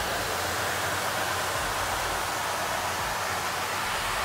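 Reichmann Profi 4 Vario belt grinding machine running with a snowboard's base pressed against its sanding belt: a steady hiss of the belt grinding the base, over a low machine hum. This is the fine grind of the base.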